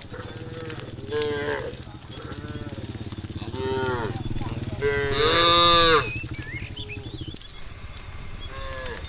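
Cattle mooing: several rising-and-falling calls, the loudest and longest about five to six seconds in, over a steady low hum that stops about seven seconds in.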